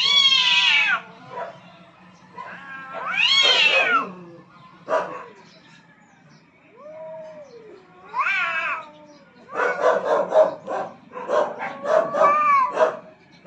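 Two cats caterwauling at each other in a fight for dominance: long wailing yowls that rise and fall, a lower drawn-out yowl about halfway through, then a rapid, broken run of yowls in the last few seconds.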